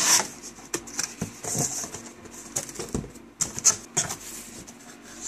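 Cardboard box being opened by hand: flaps scraping and rustling, with scattered knocks and clicks and a few short hissy scrapes.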